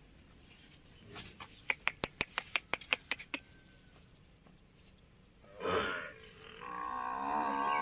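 A quick, uneven run of sharp clicks, then a water buffalo lowing near the end: a short call followed by one long, wavering moo.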